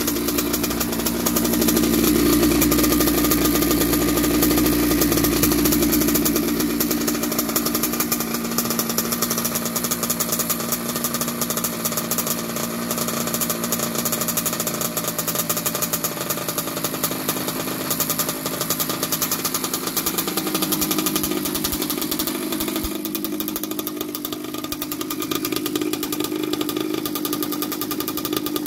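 1982 Yamaha YZ80J's single-cylinder, water-cooled two-stroke engine running steadily at idle, a little louder with more low rumble for the first several seconds. It sounds healthy and not rattly.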